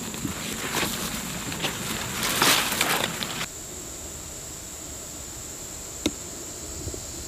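Leaves and twigs rustling and crackling as a soldier in a leaf-covered ghillie suit crawls through forest undergrowth, loudest about two and a half seconds in and stopping abruptly around halfway. A steady high insect buzz runs underneath, with a single sharp snap near the end.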